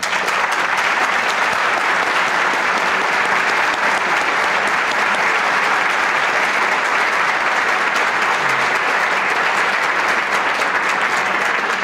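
A large indoor audience applauding steadily, a dense wash of clapping that starts abruptly and holds at an even level throughout.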